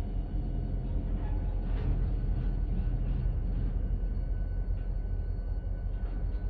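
Freight train of covered hopper cars rolling slowly past: a steady low rumble of steel wheels on the rails, with a few faint clicks.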